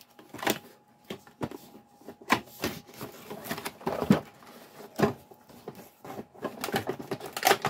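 Cardboard toy box being opened and handled by hand: irregular rustles, scrapes and light taps of cardboard and plastic packaging.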